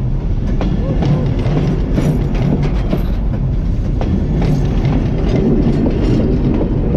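Heritage passenger carriages of a steam-hauled train rolling past at close range: a steady, loud low rumble of wheels on rail, with irregular clicks and knocks from the wheels and bogies.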